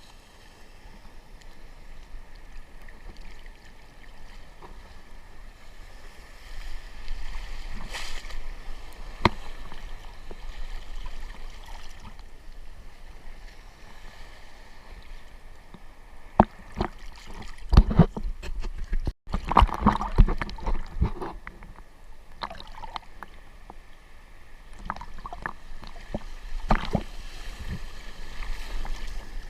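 Sea water sloshing and splashing around a GoPro camera in the surf. A burst of sharp splashes and knocks comes about two thirds of the way in.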